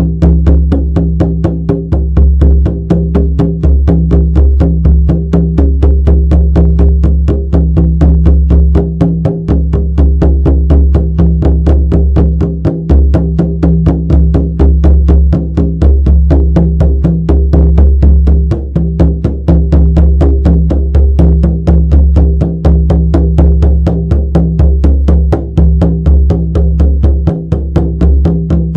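Shamanic frame drum beaten in a fast, even, unbroken rhythm, each strike ringing into a sustained low boom.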